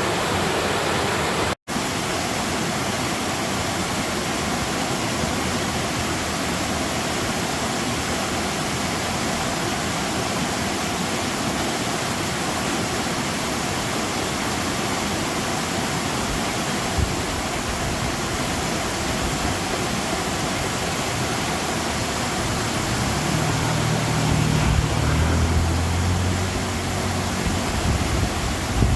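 Steady rushing of flowing water in a stream, with a momentary cut-out to silence just under two seconds in. From about two-thirds of the way through, a low rumbling joins the rush.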